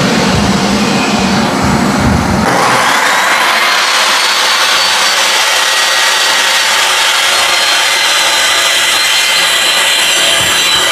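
Table saw running, then ripping along the edge of a pine board from about two and a half seconds in, a steady cutting noise with a high whine, to give a second straight edge parallel to the first.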